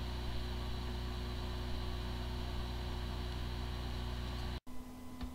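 Hard drive spinning with a steady whir and hum and no clicking. The drive has corrupted firmware, so it sounds like a healthy drive even though no computer can detect it. The recording cuts off suddenly near the end.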